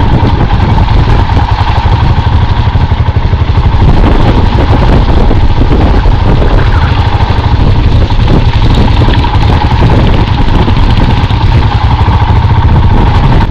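Motorcycle engine running steadily while the bike is ridden along a muddy dirt road, heard from the rider's seat.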